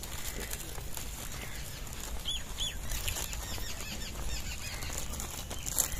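Birds chirping in a quick run of short, arching calls starting about two seconds in, over a steady low rumble, with a sharp click near the end.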